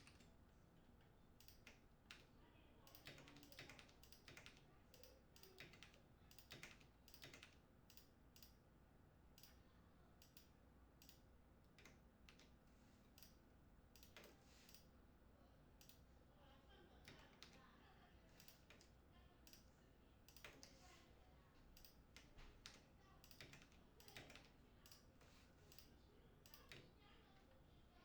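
Mechanical keyboard with lubed linear switches being typed on: quiet, irregular keystrokes, the deep 'thock' sound that lubed linear switches are tuned for.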